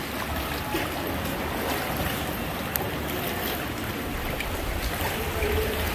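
Sea water sloshing and lapping around a kayak on open water, with wind noise on the microphone and a few faint knocks.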